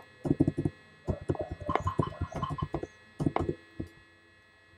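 Typing on a computer keyboard: quick runs of sharp key clicks in three bursts, with a last single click near the end.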